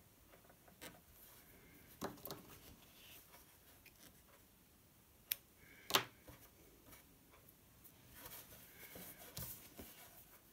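Quiet hand-handling sounds of a cotton fabric mask and its serged thread tails: soft rustling with a few small clicks and taps, the sharpest about six seconds in.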